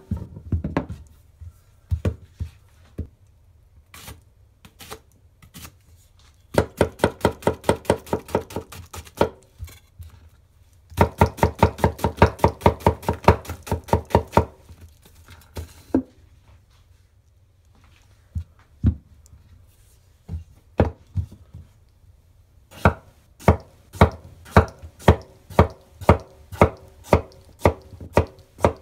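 Japanese wa-gyuto chef's knife chopping on a wooden cutting board, the edge knocking the board with each cut through red onion and then butternut squash. Scattered single cuts give way to two runs of fast, rapid chopping a third and halfway in. Near the end comes a steady series of firmer single chops about two a second.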